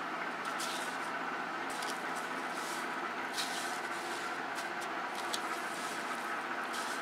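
Panko breadcrumbs rustling and crunching in short, irregular bursts as fingers press them onto an egg-dipped pork cutlet on a stainless steel tray, over a steady background hum.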